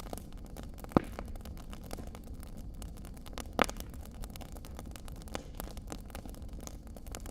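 Wood fire crackling in a stone fireplace: a steady low rumble of burning with many small snaps, and two louder pops about one second in and past the middle.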